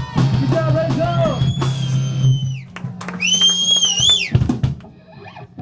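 Live rock band at the close of a song: drum hits over a steady low bass hum from the amplifiers, with two long high-pitched whining tones. Then it falls away to a low murmur about four seconds in.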